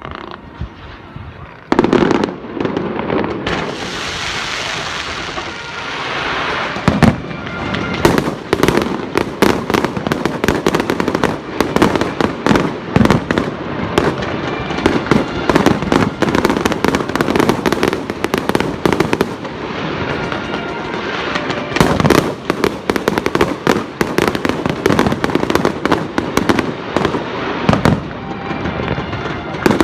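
Fireworks display going off: a loud burst about two seconds in, then a dense, continuous barrage of rapid bangs and crackles.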